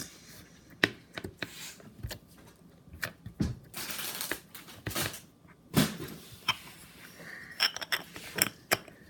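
Hands squeezing and poking slime, giving irregular sharp clicks and pops with a short rustling stretch about four seconds in.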